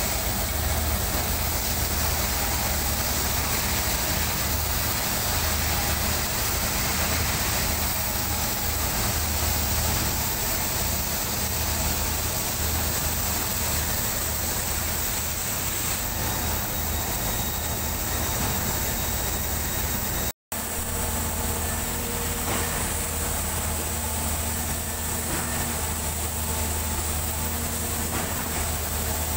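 Heavy diesel engines of a truck-mounted concrete pump and a concrete mixer truck running steadily, with a low drone under a wide noisy hum. The sound cuts out for an instant about two-thirds of the way through, then carries on the same.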